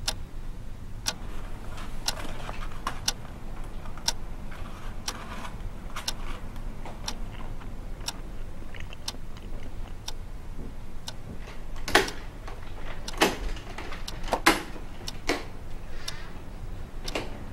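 Analog alarm clock ticking about once a second over a low steady hum, with a few louder clicks about two-thirds of the way through.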